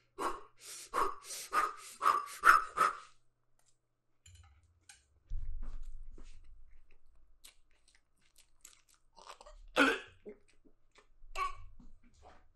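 A man gagging and coughing: a quick run of about six retching heaves in the first three seconds, then a single loud gag near the end, brought on by a foul-smelling mouthful.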